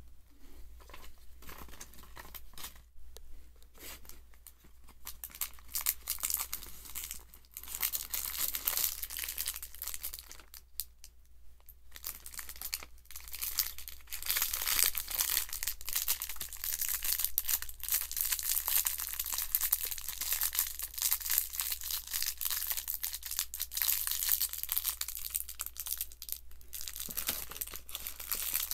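Clear plastic packaging crinkling and rustling as it is handled, in irregular bursts of crackle that get louder and busier about halfway through.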